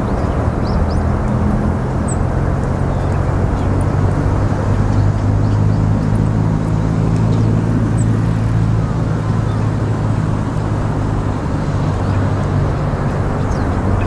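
Steady low engine rumble with a hum at a few fixed pitches.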